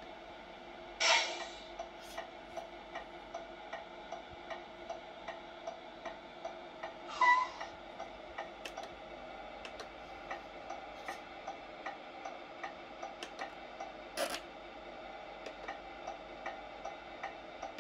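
Tamiya MFC-03 sound unit playing truck sounds through the model's small speaker: a steady idling hum with quick, regular indicator ticking, about two to three ticks a second. Two short loud hisses break in, one about a second in and one about seven seconds in, and there is a sharp click near the end.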